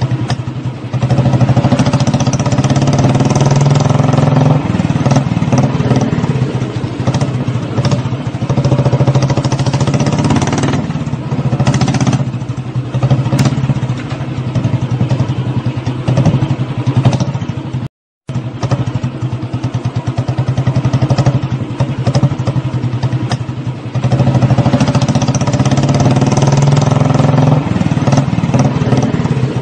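Royal Enfield Classic 350's single-cylinder engine running, its pitch rising and easing off twice as it is revved. The sound cuts out completely for a moment a little past halfway, then carries on.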